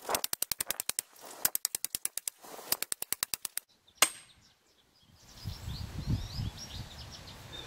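Sledgehammer striking the tops of steel pipes to drive them through a diamond pier's concrete head into the ground: three quick runs of rapid blows, about ten a second in sped-up footage, then a single knock. Birds chirp faintly after the hammering stops.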